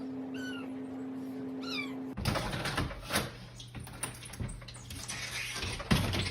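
A cat meowing twice, two short calls over a steady hum. About two seconds in, the sound changes abruptly to a run of knocks and bumps.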